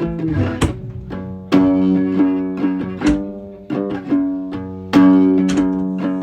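Music played on a plucked string instrument: picked notes and chords, each struck sharply and left to ring and fade.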